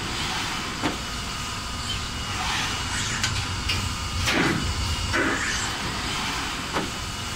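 Steady hum of an automated unloading cell, with several short hisses of compressed air from the robot's pneumatic suction-cup grippers and air valves as they grip and release.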